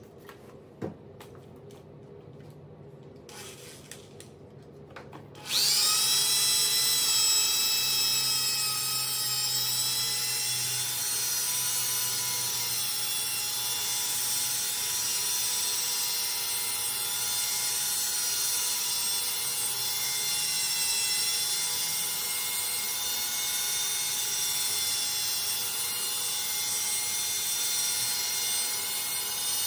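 A few short spritzes from a hand spray bottle, then a corded electric drill starts suddenly about five seconds in and runs steadily with a high whine. It is driving a 3500-grit polishing pad over wet marble.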